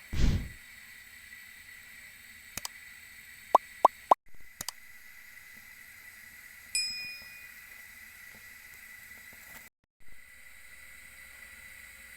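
A metal spoon knocking and clinking against a pan while sugar is stirred and melted until it turns brown. There is a thump at the start, a quick run of sharp clicks about four seconds in, and a single ringing ding near the middle, over a faint steady high tone.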